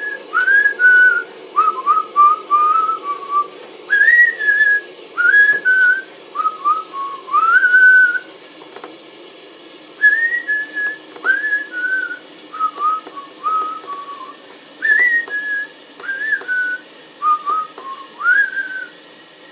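A woman whistling a melody, a guess-the-tune quiz piece that she believes is an old song from the 1920s or 1930s. Clear single notes with little slides between them, whistled through twice with a short break about eight seconds in.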